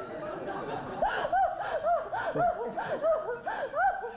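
People laughing, led by a woman's high laugh in quick rising-and-falling ha-ha pulses that grow louder about a second in.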